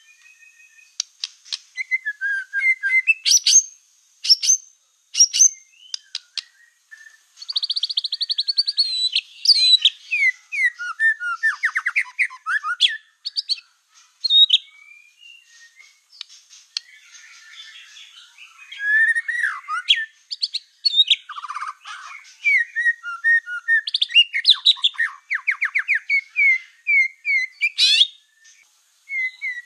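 A black-tailed white-rumped shama singing a loud, varied song of quick rising and falling whistles, fast trills and chattering phrases, broken by short pauses. This is a bird in full song.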